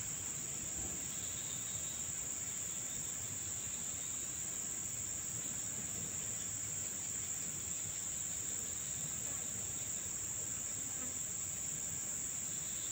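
Steady, high-pitched chorus of insects, unbroken throughout, over a faint low background hiss.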